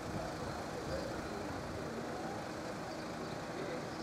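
Heritage train of wooden-bodied passenger coaches moving slowly, a steady low running noise without a clear rhythm.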